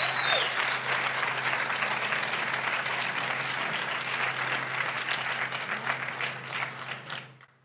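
Audience applauding, dying away just before the end.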